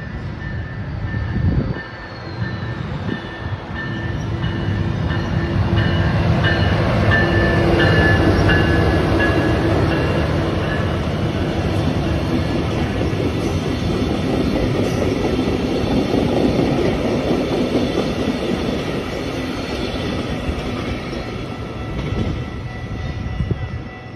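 A Siemens SCV-42 Charger diesel-electric locomotive hauling a VIA Rail Venture passenger train past at close range: engine and wheel noise build to their loudest about 8 s in, then ease off as the cars roll by with clicks over the rail joints. A level-crossing electronic bell dings steadily.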